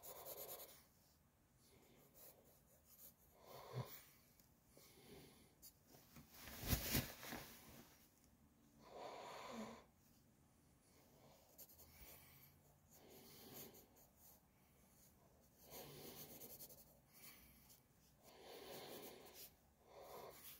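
Pencil scratching on sketchbook paper, faint, in short intermittent strokes and runs of hatching, with one brief louder noise about seven seconds in.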